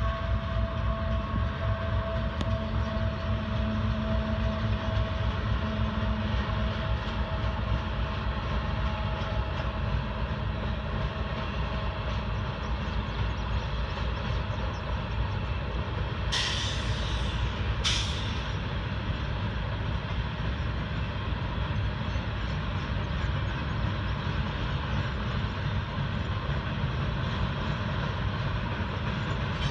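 CSX freight train rolling past: the diesel locomotive's steady running tone fades over the first several seconds, leaving the continuous rumble of the freight cars on the rails. Two short hisses come a little past halfway.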